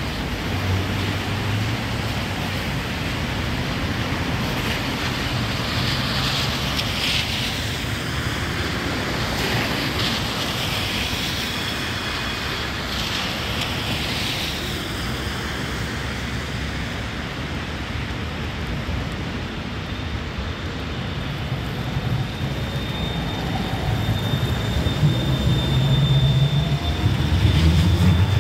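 Steady hiss of traffic on a wet street. An Astra Imperio Metropolitan tram comes up and passes close in the last few seconds, its low hum and a thin steady whine getting louder.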